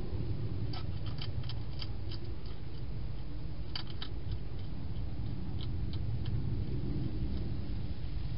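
Wild hedgehog crunching its food inside a plastic feeding box: quick, irregular crisp clicks, bunched in the first half, over a steady low rumble.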